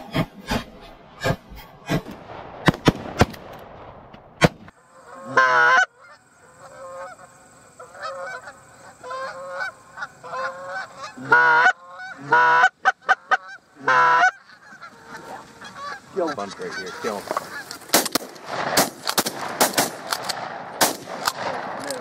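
Canada goose honking: a long run of honks, several of them very loud and close around the middle, with sharp clicking sounds before them and a busier clatter of short honks and clicks toward the end.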